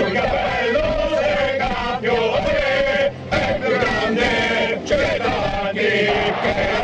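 Football stadium crowd of male fans chanting and singing together, the sung line rising and falling, with a short break about three seconds in.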